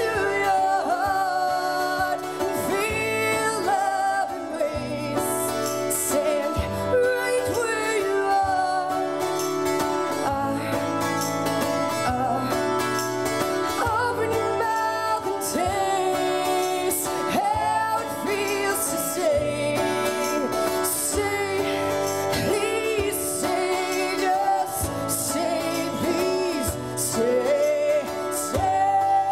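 A woman sings a melody over steadily strummed and picked acoustic guitar, her voice sliding between notes.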